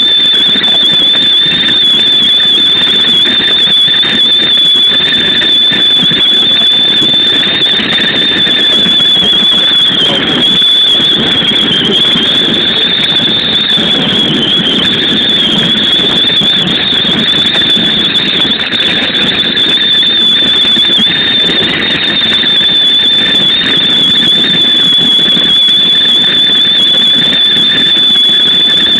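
Loud wind noise and running noise from a Keikyu New 1000 series train travelling at speed, with a steady high-pitched whistle over it that wavers slightly in pitch.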